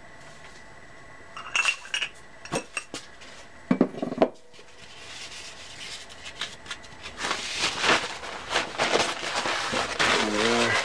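A few sharp metallic clinks and a short clatter as small-engine parts are handled, then a rag rubbing steadily, wiping lapping compound off the freshly lapped flywheel and crankshaft surfaces.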